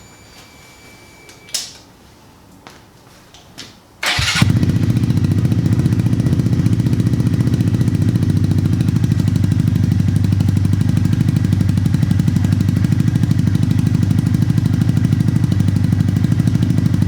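A few light clicks, then about four seconds in the Honda Monkey's single-cylinder four-stroke engine starts through a Yoshimura RS-3 exhaust. It settles at once into a steady idle.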